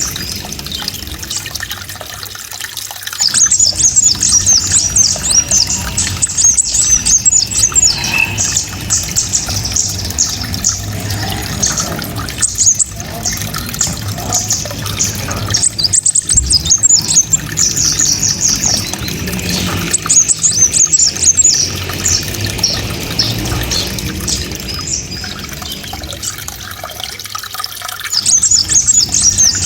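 A small songbird singing fast, shrill runs of high chirps in the rapid 'shooting' (tembakan) style. It sings in three long bouts, the first starting a few seconds in, with quieter chatter between them.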